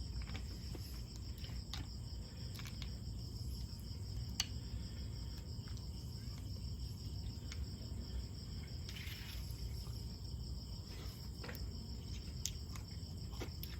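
A cricket trilling steadily at a high pitch, with scattered small clicks and taps over a low rumble.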